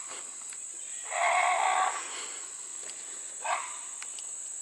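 A person imitating a raccoon's chirping call: one raspy call of under a second starting about a second in, then a shorter one near the end.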